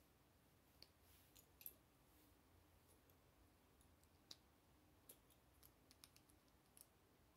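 Plastic Lego bricks being handled and pressed together, giving about ten faint, sharp clicks scattered irregularly over several seconds.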